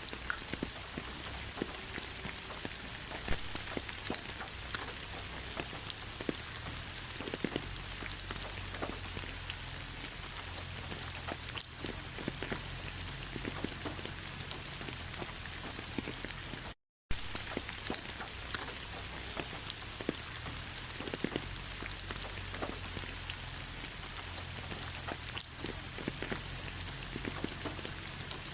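Autumn rain falling on fallen leaves: a steady patter with many scattered sharper drop ticks. The sound cuts out completely for a split second about seventeen seconds in.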